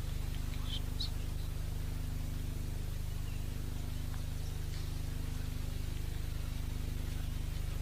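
Steady low hum, with a few brief, faint high chirps like small birds in the first second and again around five seconds in.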